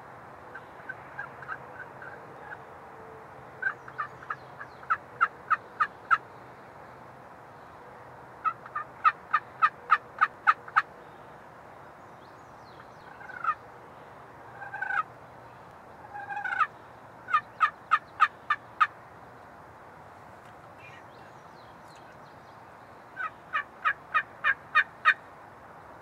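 Wild turkey yelping: repeated series of six to nine sharp notes at about four a second, each series growing louder note by note. A few single rising notes fall between the series.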